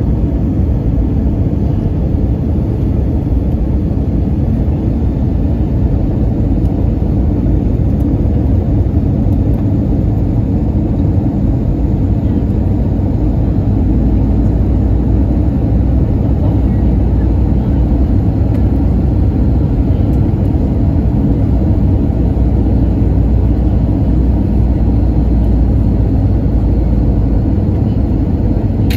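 Steady low rumble of engine and airflow noise heard inside the cabin of an Airbus A320-200 airliner in flight, a little louder in the bass through the middle and later part.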